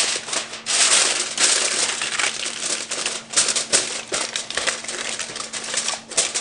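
Extra-wide heavy-duty aluminium foil crinkling and crackling as hands press and crimp it down around the rim of a stainless steel roasting pan, a dense run of crackles.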